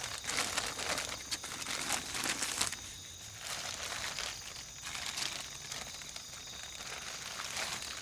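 Irregular crinkling and rustling close by, in uneven bursts, over a steady high drone of night insects.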